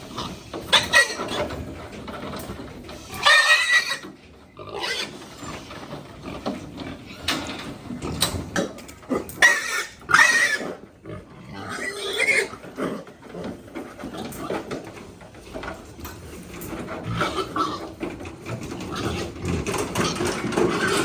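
Pigs squealing in several short, loud bursts: the loudest comes about three seconds in, then two around ten seconds and one near twelve seconds, with quieter sound between them.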